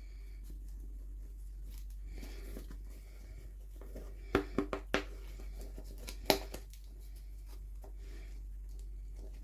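Hands unboxing small toys: a soft rustle of packaging, then four quick sharp clicks in about a second, and one louder click a second later, over a steady low hum.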